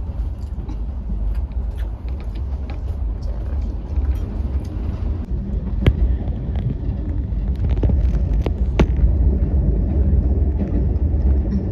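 Rajdhani Express passenger coach running along the track, heard from inside: a steady low rumble, with two sharp clicks about three seconds apart in the middle.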